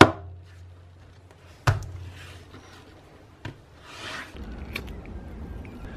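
Small objects set down on a workbench: a sharp knock as a herb grinder is put down at the start, a second knock a little under two seconds in, and a light click later, with soft rustling of handling between them.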